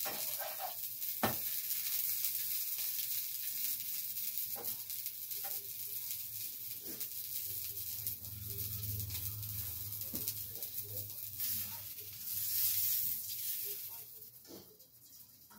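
Buttered French toast sizzling in a nonstick frying pan, a steady hiss with a few light clicks of a spatula against the pan. The sizzle fades away near the end.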